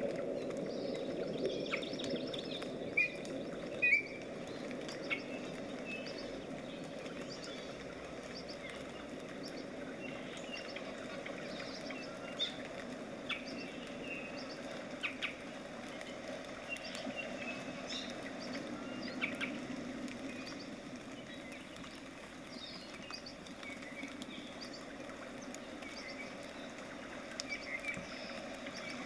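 Paintbrush working acrylic paint across a stretched canvas: a steady soft scrubbing of bristles on the canvas weave, with scattered little ticks and a few sharper ones a few seconds in.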